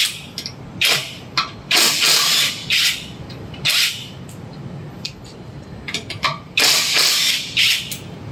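Dagmara 700 Nm electric impact wrench hammering on a car's wheel nuts in several short bursts, the longest close to a second, as the lug nuts are undone.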